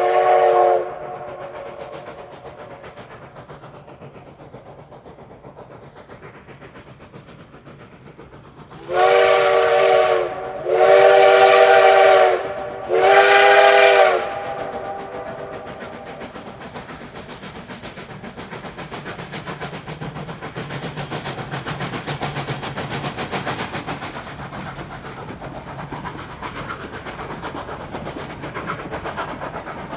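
Narrow-gauge steam locomotive's chime whistle: the end of one blast just under a second in, then three blasts of about a second and a half each starting about nine seconds in. After them the train runs past, its working locomotive and the wheels clicking on the rails growing louder.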